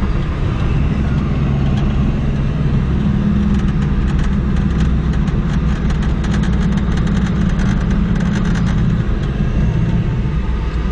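Car engine and road noise heard from inside the cabin while the car drives along a winding road. The low engine hum eases off slightly about nine seconds in, with faint light clicks over the middle stretch.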